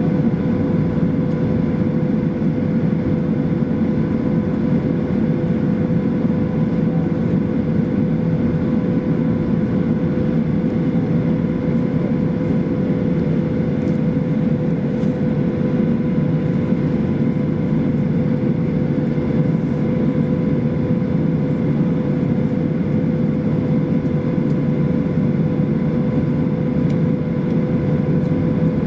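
Steady engine and airflow noise heard from inside the cabin of a Boeing 737-800 with CFM56-7B engines, a constant drone with a clear steady hum that holds level throughout.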